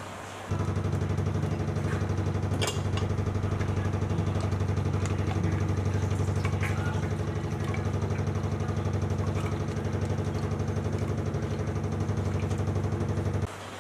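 A steady, loud motor-like drone with a low, fast churning flutter. It starts abruptly about half a second in and cuts off abruptly near the end.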